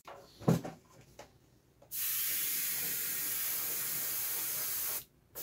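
Airbrush spraying: a steady hiss of air and paint starts about two seconds in, stops briefly near the end, then starts again. Before it come a few short knocks of handling.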